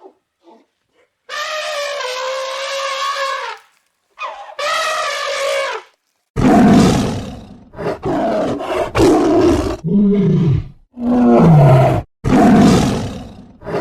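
Two long, steady-pitched calls, then a big cat roaring again and again in loud, rough roars with short breaths between them.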